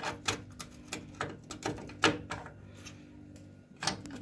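Irregular metallic clicks and clinks of a 17 mm wrench on the new fill valve of a combi boiler, as it is repositioned and turned half a turn at a time to tighten the valve. There is a quieter pause about three seconds in.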